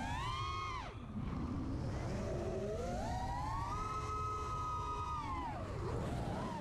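The four brushless DYS SE motors of a 5-inch FPV racing quadcopter whining as heard from its onboard GoPro Session 5, the pitch following the throttle: it rises, drops sharply about a second in, climbs and holds high in the middle, falls near the end and rises again. A low rumble runs underneath.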